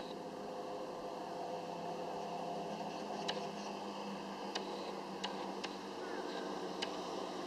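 Small wind turbines whirring with a steady hum, with a few sharp ticks scattered through it.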